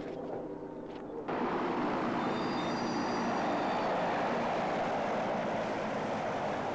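Antonov An-2 biplane's nine-cylinder radial engine running on the ground close by, a loud steady roar with propeller wash that cuts in abruptly about a second in after a quieter stretch.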